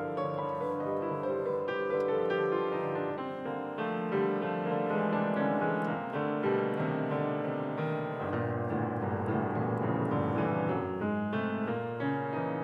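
Grand piano played solo: a dense, fast flurry of notes across the middle and low registers.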